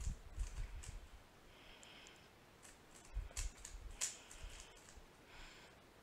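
YJ 3x3 speed cube being turned by hand: irregular quick plastic clicks and short rasps as the layers slide, with a few dull bumps of the hands against the cube.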